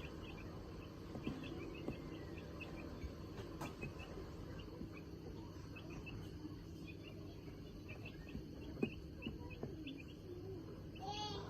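Call ducks giving many short, high peeps in a scattered run, with one louder, fuller call near the end.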